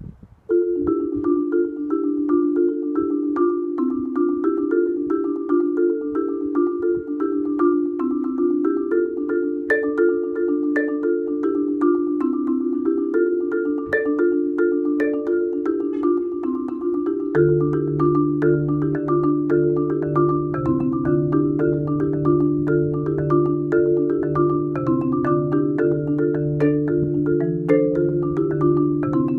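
Marimba played with four yarn mallets: quick, repeating mid-register note patterns, starting about half a second in. A low bass line joins about halfway through under the faster upper figures.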